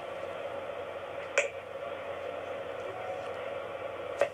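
A cat's metal collar tag clinks twice, once about a second and a half in and again near the end, over a steady room hum.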